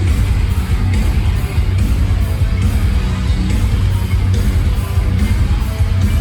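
A metalcore band playing live and loud, with electric guitar and a heavy low end.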